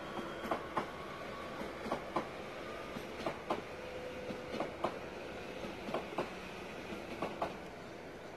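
NS Sprinter electric commuter train running past, its wheels clicking over a rail joint in pairs about a quarter second apart, one pair roughly every 1.3 seconds, over a steady rail rumble that eases a little near the end.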